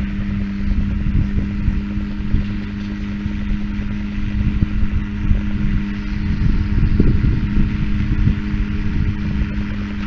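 Tractor and hay baler running steadily while baling: a constant engine drone with irregular knocking and clatter from the machinery.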